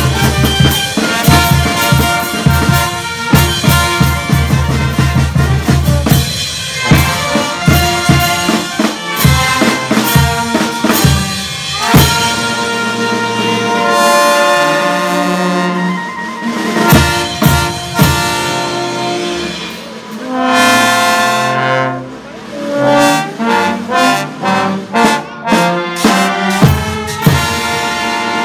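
Andean brass band of trumpets and sousaphone, with bass drum and clashed cymbals, playing a dance tune. About halfway through, the steady beat gives way to long held brass chords broken by single drum strokes.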